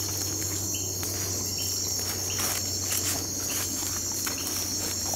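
Night-time insect chorus: a steady high-pitched trill, with a short chirp repeating about once a second.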